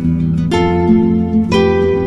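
Music: plucked string notes struck about once a second, each ringing on over a steady low sustained tone.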